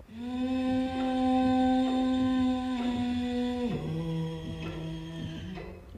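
A man's voice humming one long, low held note, then after a short break a second, lower held note that stops about five and a half seconds in.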